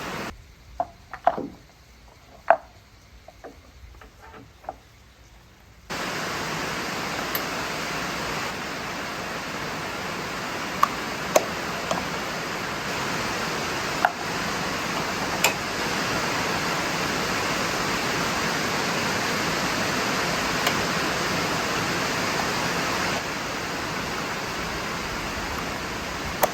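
Heavy rain falling steadily, with a few sharp taps of drops on top. The first few seconds are quieter, with scattered knocks, before the steady rain comes in about six seconds in.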